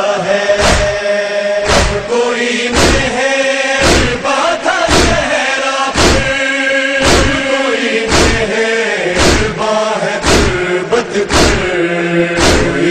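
A group of men chanting a Shia noha in unison, with rhythmic chest-beating (matam): hand strikes on the chest land about once a second under the chant.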